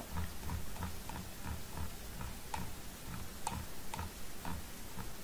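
Computer mouse scroll wheel ticking through its notches: a run of light clicks, about four a second.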